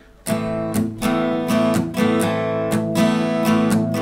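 Acoustic guitar strummed in chords, starting about a third of a second in and going on in a steady strumming rhythm: the opening of a simple three-chord song.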